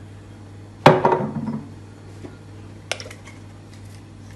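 Kitchenware clinking as a sauce is mixed in a small ceramic bowl: one sharp, loud knock with a short ringing tail about a second in, then a lighter click about three seconds in. A steady low hum runs underneath.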